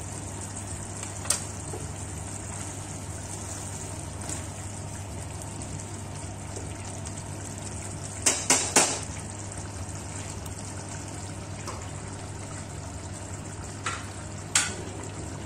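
Chicken curry simmering in a steel kadai on a gas stove, a steady bubbling hiss. About eight seconds in, a wooden spatula knocks against the pan three times in quick succession, and there are a couple more clicks near the end.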